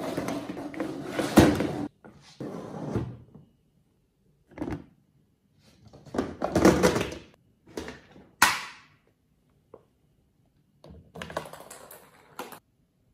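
Clear plastic storage box being knocked, pushed and tipped by cats on a laminate floor: a series of separate bursts of plastic clattering and scraping with pauses between them, the sharpest knock about eight and a half seconds in.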